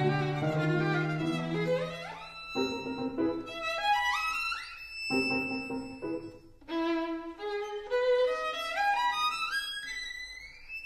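Background music: a melody on a bowed string instrument, with several quick upward runs that end on held high notes.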